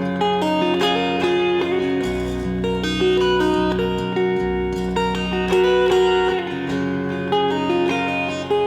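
Instrumental song intro led by guitar: plucked and strummed chords changing every second or so over a steady bass line.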